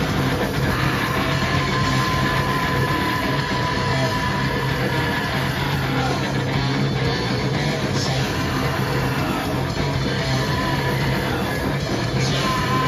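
Live rock band playing loud through a PA: electric guitar, bass guitar and drums, with a singer on the microphone.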